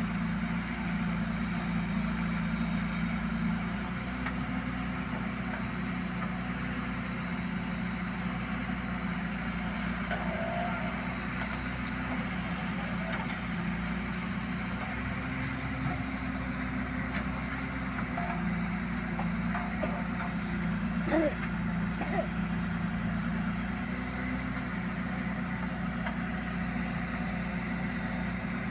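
Diesel engine of a JCB 3DX backhoe loader running steadily while it works, its note shifting slightly as the load changes. A few brief higher sounds break in about two-thirds of the way through.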